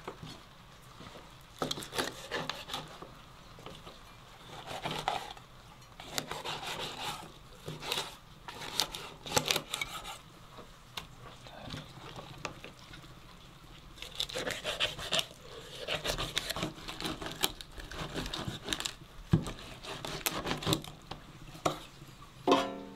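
Kitchen utensils and dishes knocking, scraping and clinking irregularly as raw rabbit meat is prepared.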